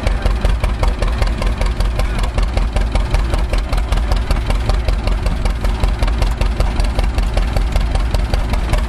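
Antique farm engine idling steadily with an even, rapid beat.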